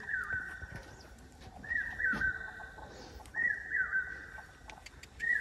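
A bird calling over and over, about once every second and a half to two seconds. Each call is a short high note followed by a longer note that slides slightly lower.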